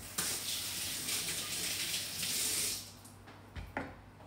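Kitchen tap running over hands for about three seconds, then turned off; a short knock follows shortly after.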